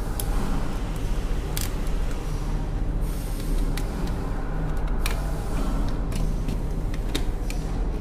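Scattered sharp clicks and taps of a small screwdriver and a wire being worked into the switch terminal of a plastic switch box, over a steady low hum.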